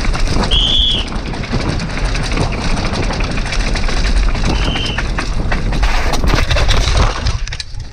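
Downhill mountain bike clattering and rattling at speed down concrete and stone steps, with a constant low rumble of wind on the camera microphone. Two brief high squeals cut through, about half a second in and again about four and a half seconds in.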